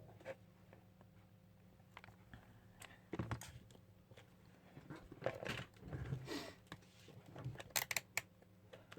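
Faint, scattered clicks, knocks and rustles of handling at a workbench, with a low steady hum underneath.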